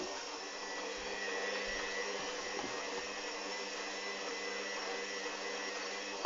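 Hoover Dynamic washing machine running with a steady motor whir and hum, with no change in pitch.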